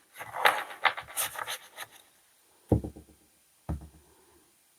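Oracle cards being shuffled and handled, a quick run of papery rustles and rubs, then two soft knocks on a table about a second apart.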